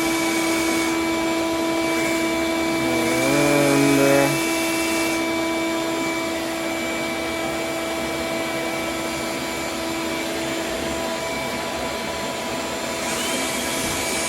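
Vacuum running with a steady whine and hiss; about three seconds in its pitch wavers and it gets briefly louder for a second or so, then settles.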